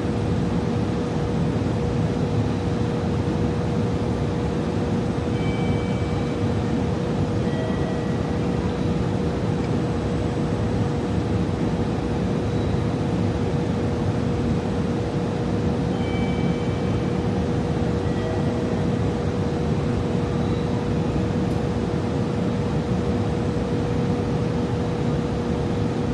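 Steady railway-station platform background: a constant low rumble with a steady droning tone, and faint short high-pitched tones that come back about every ten seconds.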